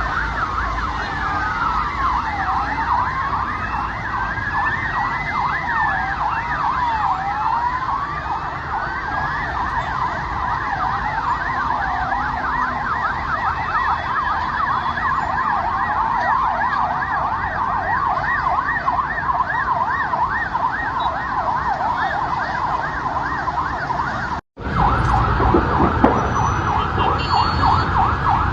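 Several emergency-vehicle sirens sounding at once, their wails overlapping. At first they rise and fall slowly, then from about a third of the way in they turn to fast yelps. A low rumble runs underneath, and there is a brief cut near the end before the yelping carries on.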